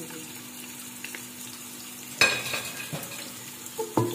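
Ginger-garlic going into hot ghee and browned onions in an aluminium pressure cooker, with a low frying sizzle throughout. A sharp clatter of the spatula against the cooker comes about two seconds in, and a couple more knocks follow near the end as it is stirred.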